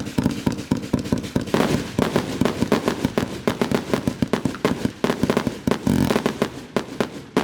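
Multi-shot consumer fireworks cake firing a rapid, continuous barrage of bangs and pops, many a second, easing briefly near the end.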